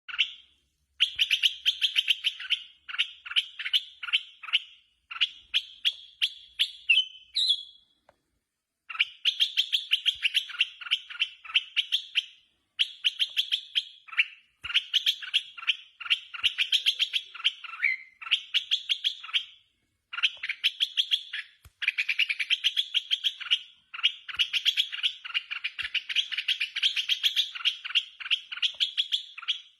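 Red-whiskered bulbul singing fierce, shrill bouts of rapid chattering notes. Each bout lasts a second or two and is separated by short breaks, with a longer pause about eight seconds in.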